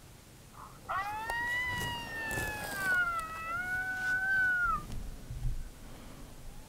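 Recorded coyote howl played through a FoxPro X24 electronic predator caller: one long howl of about four seconds that rises, then falls and wavers, and drops off at the end. It is the opening call of a coyote-calling stand.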